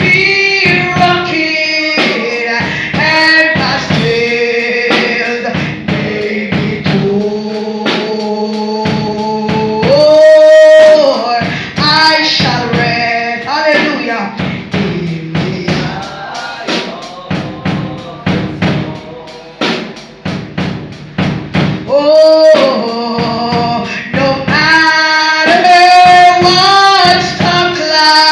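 Gospel worship singing by men and women, amplified through a microphone, over a drum beat, with a long held note about ten seconds in.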